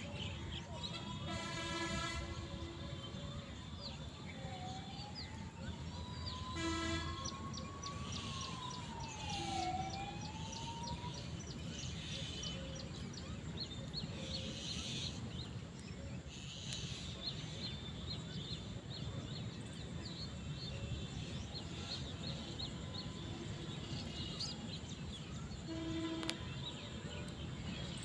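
Outdoor ambience: a siren wailing in slow rising and falling sweeps for about the first ten seconds, a few short horn honks, small birds chirping, and a steady low traffic rumble.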